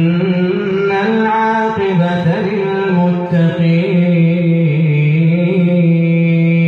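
A man's voice reciting the Quran in a slow, melodic chant into a microphone, with ornamented turns of pitch, then a long steady held note in the second half.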